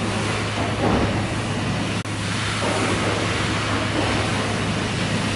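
Butterley low-pressure condensing beam engine running slowly: a steady mechanical rushing noise over a constant low hum, rising and falling every few seconds.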